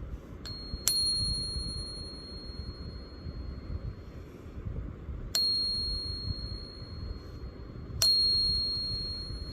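A Morgan silver dollar being tapped with metal for a ping test: three sharp strikes a few seconds apart, each leaving a clear, really high-pitched ring that fades slowly over several seconds. The long sustained ring is the sign of a genuine silver coin.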